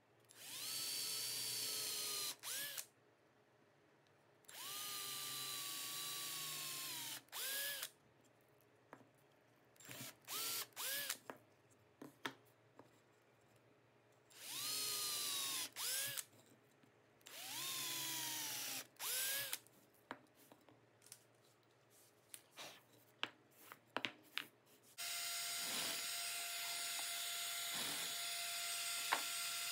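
Hand-held power drill run in short bursts of a second or two as it bores pilot holes into plywood, its whine sagging in pitch as the bit loads up in the wood, with brief trigger blips between runs. Near the end a drill press motor comes on and runs with a steady, even hum while its bit cuts into a plywood stack.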